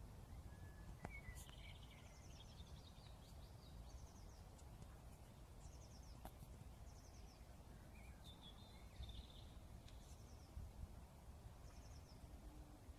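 Faint birdsong: short, high chirped phrases repeating every second or so, over a low steady outdoor rumble.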